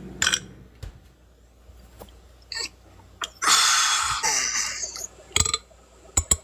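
A person burping: one long burp starting about three and a half seconds in and lasting about a second and a half, with a few short sharp sounds before and after it.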